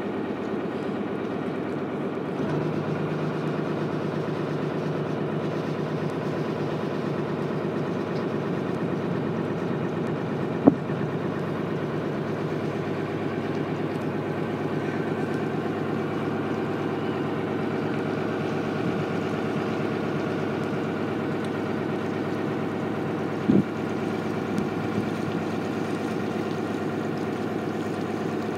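Boat engine running at a steady speed under way, a constant drone. Two short sharp knocks stand out, one about eleven seconds in and one a little over twenty-three seconds in.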